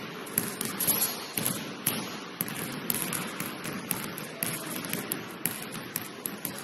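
A basketball game in play: irregular sharp knocks of the ball bouncing and players' feet on the court, several a second, over a steady background of gym noise.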